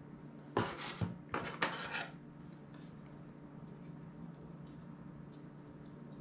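Metal phone parts from a disassembled Asus Zenfone scraping and rubbing against each other as they are handled, two short scrapes in the first two seconds, then a few faint light clicks of small parts.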